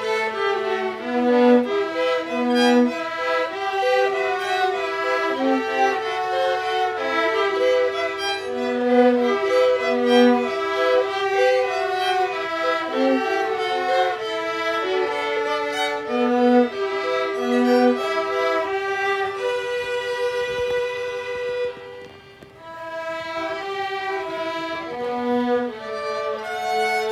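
A small student ensemble of violins and a flute playing a melodic piece together. The music thins to a brief lull about four-fifths of the way through, then resumes.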